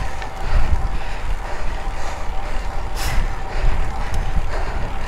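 Wind buffeting the microphone of a camera riding along on the climb, a rough low rumble with road or vehicle noise under it, and a brief hiss about three seconds in.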